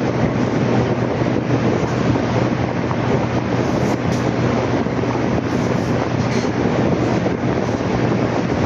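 Steady rumbling noise of a moving vehicle, with a constant low engine hum and wind on the microphone.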